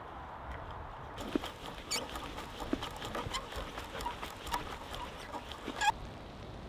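Bit and brace auger boring into a log: a dense, irregular run of crackling clicks and creaks as the bit cuts the wood fibres, starting about a second in and stopping with a sharp snap shortly before the end.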